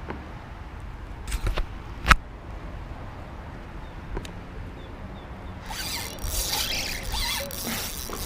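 A few sharp knocks in the first two seconds, then from just past halfway a fishing reel ratcheting with a rapid rasping clicking.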